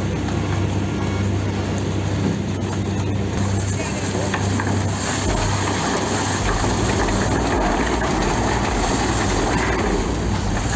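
A vehicle engine running steadily, with indistinct voices.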